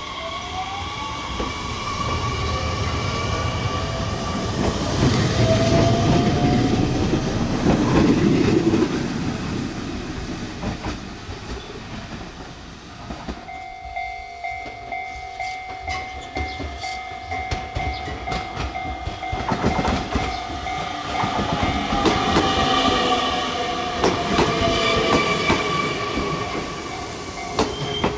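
Two Nishitetsu two-car electric local trains, one after the other. The first, a 7000 series, passes with wheel rumble and a rising motor whine, loudest about six to nine seconds in. After a sudden change about halfway, a 7050 series runs by with a steady whine and wheels clicking over the rail joints.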